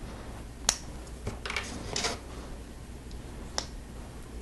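Small sharp clicks and light rustling from Lego pieces being handled as a rubber tire is worked onto a plastic wheel rim. There are single clicks near the start, a short cluster around two seconds in, and one more click later.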